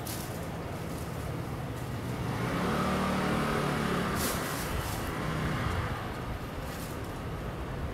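Steady low rumble of road traffic, with one vehicle's engine growing louder and fading between about two and four seconds in. A few short hissy rustles follow.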